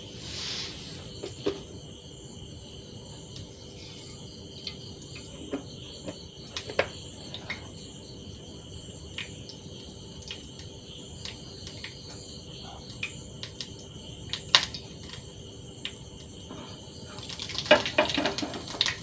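Mustard seeds sizzling in hot oil in a small pan, a steady high hiss with scattered sharp pops as the seeds begin to splutter, the pops coming thicker near the end.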